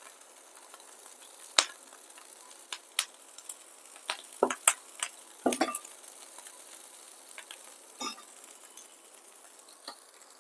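Faint, steady sizzle of a thin film of oil and water on a hot frying pan on an induction cooktop, the pan heating before the dosa batter goes on. A few short, sharp clinks of steel utensils are scattered through it.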